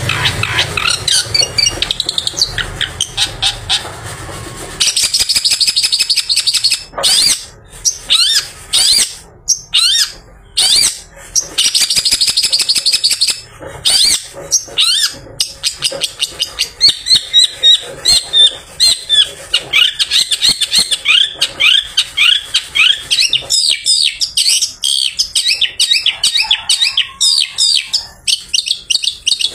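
Long-tailed shrike singing after its bath: fast runs of sharp chattering notes, then a long series of quick downward-sweeping notes, several a second. A low rumble sits underneath for the first five seconds.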